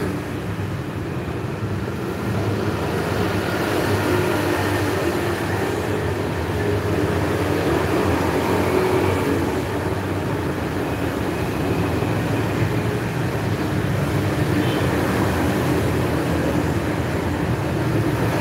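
Steady road traffic noise, a continuous rumble of passing vehicles.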